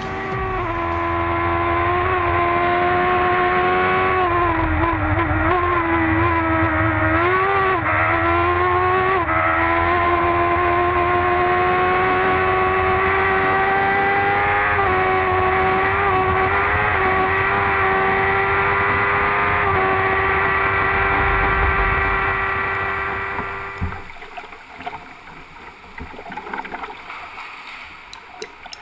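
Single-seater race car engine at high revs, heard from onboard, its pitch dipping and climbing slightly. About three-quarters of the way through it drops away, leaving a quieter rushing noise.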